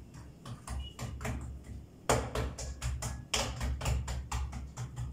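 Irregular knocks and taps of a rolling pin working pizza dough against the countertop, with two sharper knocks about two and three seconds in, over a low steady hum.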